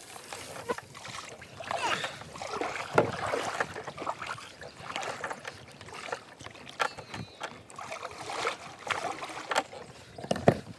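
Kayak paddling: the paddle blades splash and swish through the water in uneven strokes, with a few sharp knocks.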